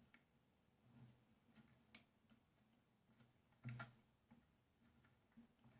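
Near silence with faint, scattered metallic ticks and clicks and one soft knock just before four seconds in: handling sounds from unscrewing the second bolt that holds the track to the body of a nail gun.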